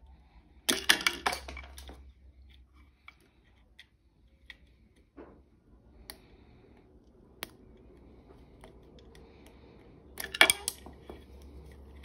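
Small plastic wiring connectors inside an electric scooter's handlebar housing being pried and unplugged with a metal screwdriver bit: two short bursts of clicking and rattling, about a second in and near the end, with light ticks between.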